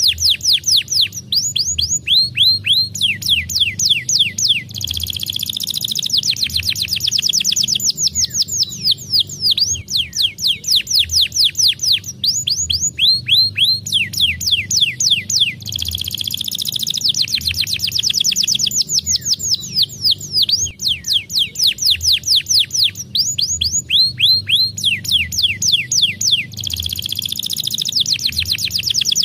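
Domestic canary singing a long, fast song of rapid falling whistles and rolling trills, the same run of phrases coming round about every eleven seconds. It is a canary lure song, played to set a silent canary singing.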